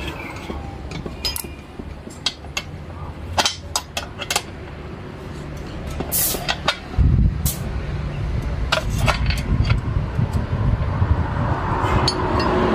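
A small air compressor's pump and motor run with a low steady drone that gets clearly louder about seven seconds in. Sharp metallic clicks and taps come through over it.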